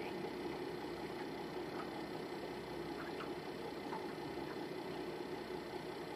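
Boat engine idling, a steady low hum heard from on board.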